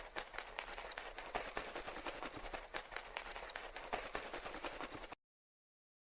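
Sound effect for a butterfly: a faint rustling flutter made of many rapid fine ticks over a soft hiss. It cuts off abruptly about five seconds in.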